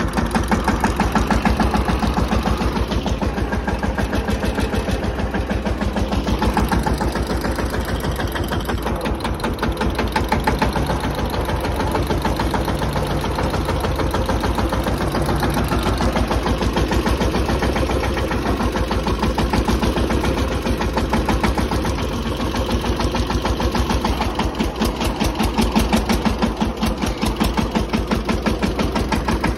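Single-cylinder diesel engine of a Mahindra Yuvraj 215 tractor running steadily with a fast, even beat, heard from the driver's seat.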